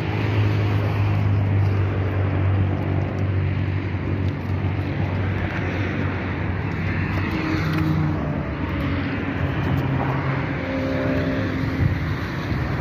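Steady low engine hum, like a motor vehicle running at idle, with a hiss of noise over it; its pitch shifts a little from about seven to eleven seconds in.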